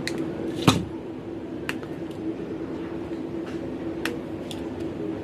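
Sharp clicks and taps of small hand tools handling thin wire, the loudest about a second in and several fainter ones after, over a steady low hum.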